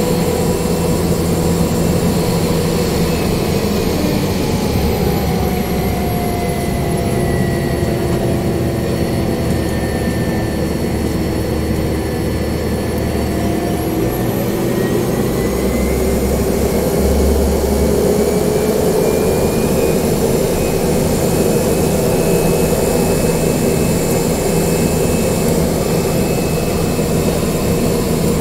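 Single-engine turboprop aircraft heard from inside the cockpit, running steadily on the ground before takeoff. Its turbine whine slowly falls in pitch during the first ten seconds or so, then rises again.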